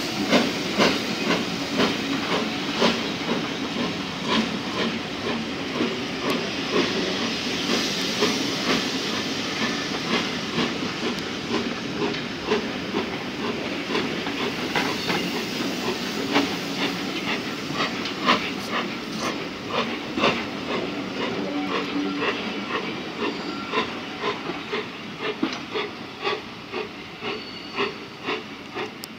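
BR Standard Class 4 4-6-0 steam locomotive no. 75078 pulling away with a train of coaches: a steady rhythmic beat of exhaust with steam hiss and the rattle of the passing coaches, fading as the train draws away.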